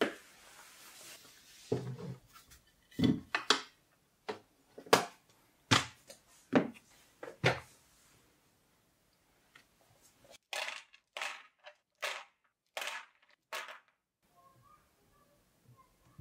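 Hard clacks and clinks of ceramic keycaps and keyboard parts being handled and set down. They come irregularly, about one a second, stop for about two seconds, then come again as a run of five.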